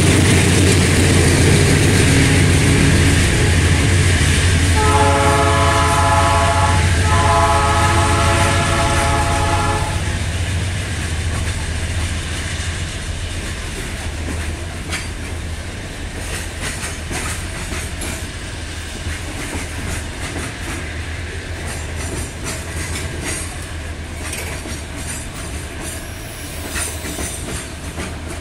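Freight train passing: the diesel locomotive sounds its multi-note horn in two long blasts over a heavy engine rumble, then the engine fades and the wagons roll by with a steady rumble and the repeated clickety-clack of wheels over rail joints.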